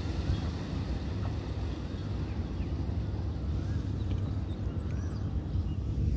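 Wind rumbling and buffeting on the microphone, with a few short warbling bird calls.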